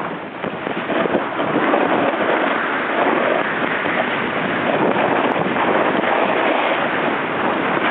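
Steady rushing wind noise buffeting the camera microphone.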